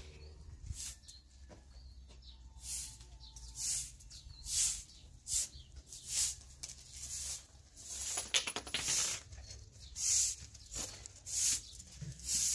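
Short-handled straw broom sweeping a concrete yard: a run of brisk swishes, a little faster than one a second.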